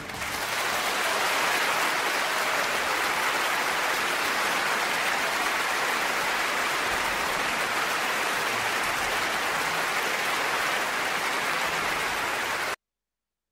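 A steady, even rushing noise like rain, at a constant level, which cuts off abruptly near the end.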